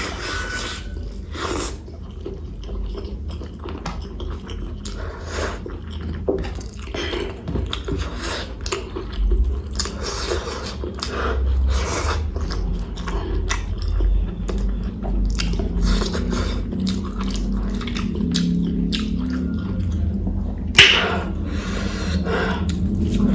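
Close-miked chewing and wet mouth sounds of someone eating rice and curry: irregular soft smacks and clicks, with one sharper click near the end, over a steady low hum.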